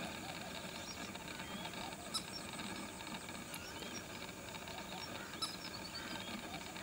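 Outdoor ambience full of faint, scattered small bird chirps and twitters over a steady hiss, with two sharp clicks, one about two seconds in and one about five seconds in.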